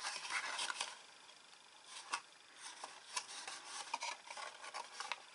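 Scored cardstock rustling and rubbing as it is handled and bent along its folds. The rustling is busiest in the first second, followed by a few light, sharp crackles and taps.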